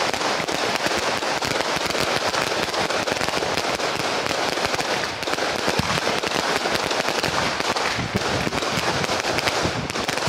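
Firecrackers going off in a dense, unbroken crackle of rapid bangs.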